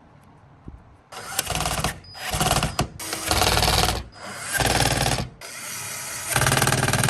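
Small power screwdriver or drill running in several bursts of one to two seconds, with a fast rattling buzz, as screws are driven into the computer.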